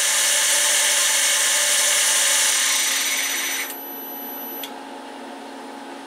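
PM-727M mill's spindle motor and poly-V belt drive running at about 3,000 RPM with a steady whine, then switched off and winding down, falling quiet about three and a half seconds in and stopping about a second later. A faint steady hum remains.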